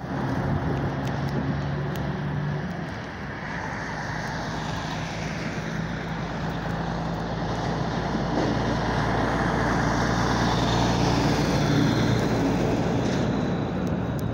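Heavy truck engine running as a semi-trailer truck with a flatbed drives past, over a steady hum of street traffic; it grows louder after the first few seconds and is loudest toward the end.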